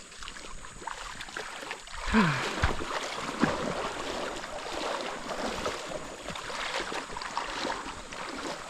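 Mountain creek running and splashing over rocks, a steady rush of water that gets louder about two seconds in.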